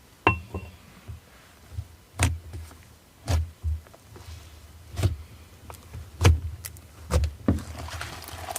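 Slime being worked by hand for a pretend cooking step, giving a series of separate sticky clicks and soft thumps about once a second, with a brief ringing tick at the start.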